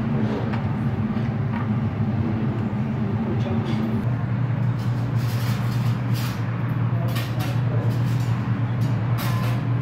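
Steady low mechanical hum that drops in pitch about four seconds in, with scattered sharp clicks and knocks in the second half.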